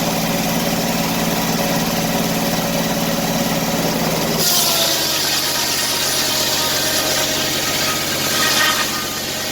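Engine-driven circular sawmill with a 48-inch inserted-tooth blade running steadily. About halfway through, a loud hiss of the blade cutting into the log comes in, with the engine working under the load, and it eases near the end.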